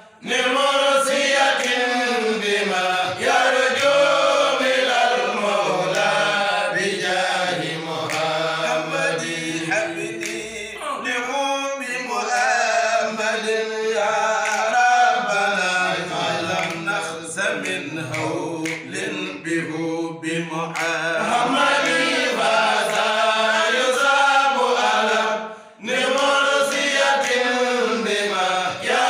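Men chanting Arabic devotional poetry in praise of the Prophet Muhammad, unaccompanied: a lead voice with a group singing along. The chant drops out briefly near the end and then resumes.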